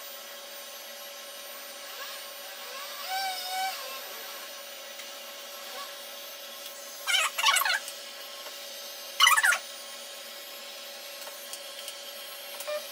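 Handheld IPL hair-removal device humming steadily from its cooling fan while it is worked over the legs. A brief warbling tone comes about three seconds in, and two louder short bursts about seven and nine seconds in.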